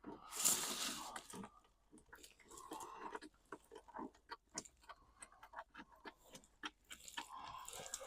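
A rustling scrape about half a second in, then a run of small irregular clicks and knocks, and another rustle near the end: something being handled and moved.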